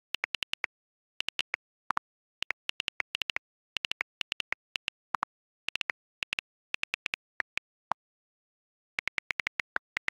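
iPad on-screen keyboard clicks as a message is typed: rapid, irregular taps in runs, a few of them lower in pitch, with a pause of about a second before a last quick run near the end.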